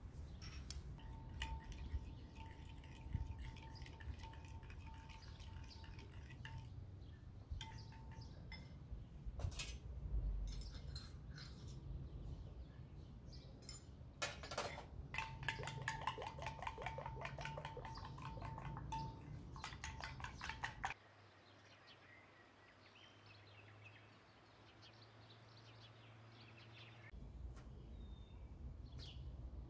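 A metal spoon clinking against a glass bowl as it stirs, with scattered light clinks of dishes and a run of quick, evenly spaced taps in the second half. The sound drops away sharply about two-thirds of the way through and stays much quieter for several seconds.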